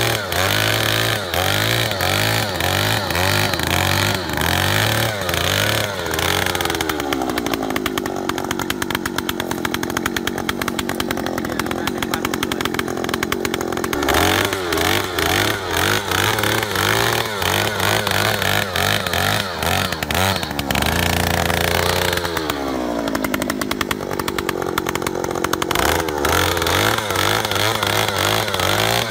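Oshima 2PS earth auger's 54 cc two-stroke engine running loud at high revs while the auger bores into sandy soil. The engine speed drops twice and climbs again.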